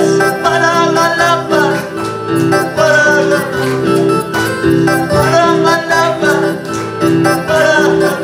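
A man singing a Quechua worship song into a microphone over an electronic keyboard accompaniment with a steady repeating beat.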